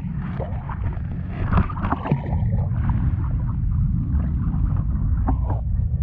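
Wind buffeting the microphone in a steady low rumble, with a few knocks and rustles from the camera being handled about one and a half to two seconds in.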